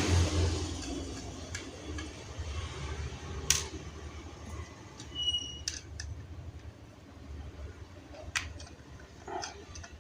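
A few separate sharp clicks and light taps of a screwdriver and small laptop parts being handled while the hard drive's mounting bracket is taken off, over a low steady hum. A brief faint squeak about five seconds in.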